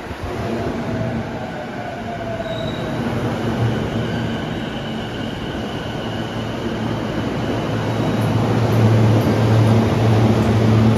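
JR E233-1000 series electric commuter train braking to a stop at a platform, with faint high brake and wheel tones that fall away in the first few seconds. It then stands with a steady low hum from its on-board equipment that grows louder near the end.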